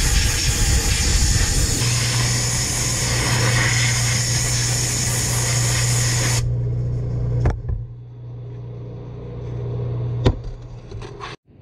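Gravity-feed sandblaster gun blasting abrasive with compressed air: a loud, steady hiss that stops abruptly about six seconds in. Under it a steady low hum of the air compressor running starts about two seconds in and carries on afterwards, with two sharp clicks later on.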